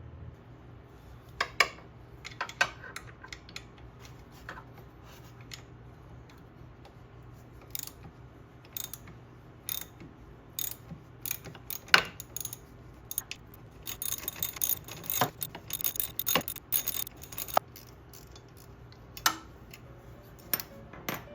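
Scattered sharp metallic clicks and knocks of hand tools and parts being worked on, with a dense run of rapid clicking about two thirds of the way through.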